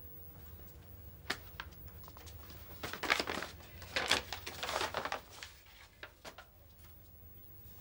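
Paper wrapping rustling and crinkling in short bursts as a small package is unwrapped by hand, after a single sharp click about a second in.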